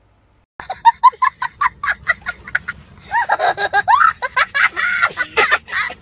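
A child laughing hard, starting about half a second in with rapid short bursts of laughter, then breaking into longer, wailing laughs that rise and fall in pitch.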